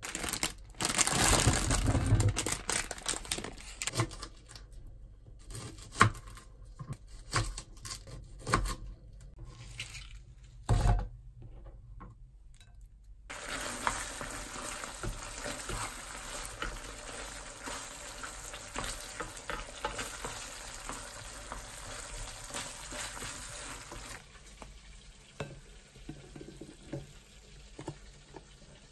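Tikka masala sauce sizzling in a non-stick frying pan as it is stirred with a wooden spoon. The sizzle holds steady for about ten seconds in the middle, with scattered knocks and scrapes before and after it.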